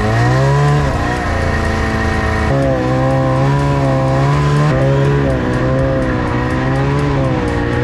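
Arctic Cat ZR600 snowmobile's two-stroke 600cc engine running under way, its pitch wavering up and down as the throttle is worked, with steps in pitch about two and a half and about five seconds in.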